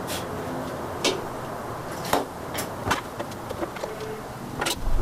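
Irregular sharp knocks and clicks from hand work on a clamped wooden board, over a steady low hiss, with a heavier thump near the end.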